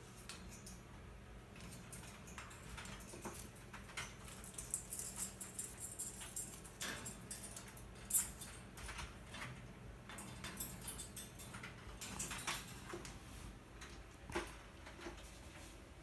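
Indian ringneck parakeet clambering over a wire cage, its claws and beak clicking and scraping on the metal bars in irregular bursts, with one sharper click about halfway through.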